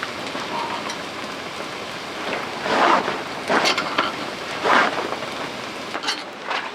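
Steady rain pattering on a camping tarp, with a few louder short swells of noise about halfway through.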